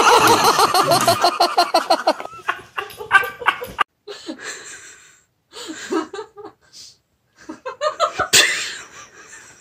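A person laughing hard in quick, rapid pulses for the first couple of seconds. After that come fainter, broken voice sounds with short silent gaps.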